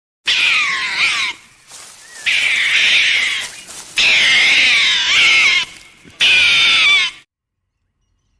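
An animal calling: four loud, high-pitched calls that waver and slide in pitch, each lasting about a second, with short gaps between them.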